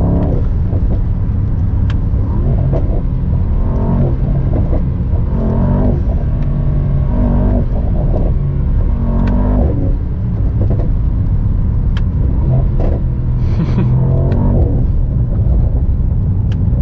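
Mercedes-AMG SL55's 4.0-litre twin-turbo V8 under acceleration, a deep exhaust rumble whose pitch rises and drops back several times.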